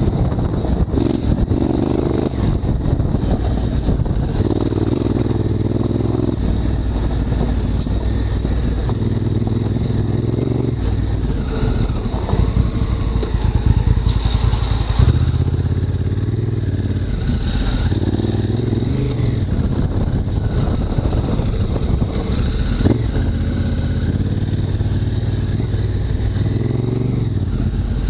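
Honda Africa Twin CRF1000L's parallel-twin engine running under a rider's changing throttle, its pitch stepping up and down every few seconds, with frequent short knocks and rattles over rough ground.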